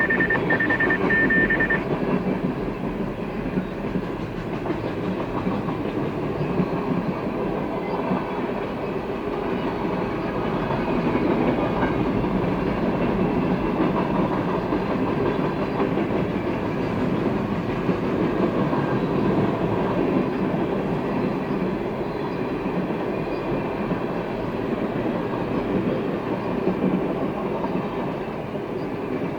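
Freight train cars rolling past on the rails, a steady rumble and rattle of wheels. A grade-crossing bell rings with a rapid high repeating tone at the start and stops about two seconds in.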